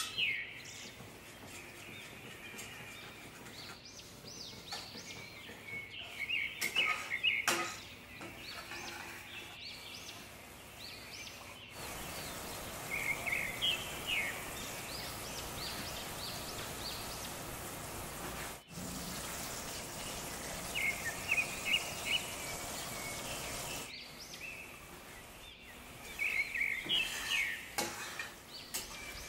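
Food sizzling in a pan, with knocks and scrapes of a spoon stirring now and then. Short bursts of bird chirping come in every several seconds.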